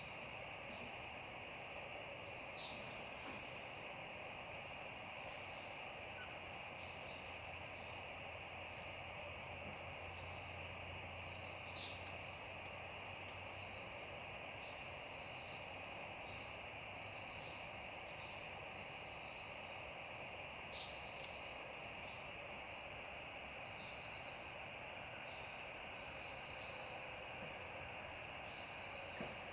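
Night insect chorus: crickets trilling steadily, with a second insect pulsing at a regular beat, over a steady background hiss.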